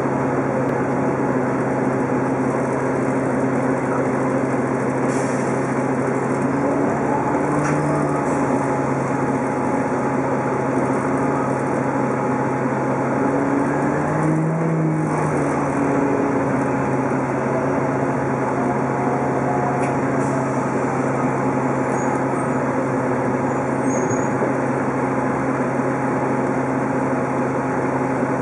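Orion VII hybrid-electric city bus heard from inside the passenger cabin: the engine and hybrid drive run steadily with a constant high whine over the drone, the engine note rising briefly about 8 and 14 seconds in.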